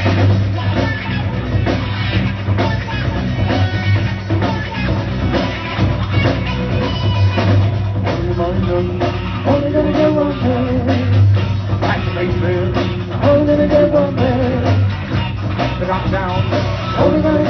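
A live rock band playing, with a drum kit, bass and electric guitar. A wavering melody line comes in about halfway through.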